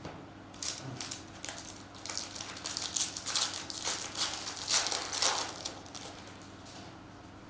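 A trading-card pack wrapper being torn open and crinkled by hand: a run of crackling rustles, busiest in the middle, then dying away about six seconds in.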